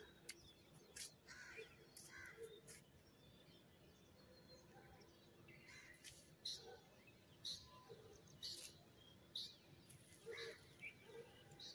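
Faint birds calling: many short, separate chirps, more of them in the second half, over a faint steady hum.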